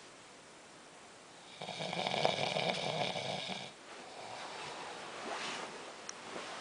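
Snoring: after a quiet second and a half, one loud snore lasting about two seconds, then a quieter, longer breath.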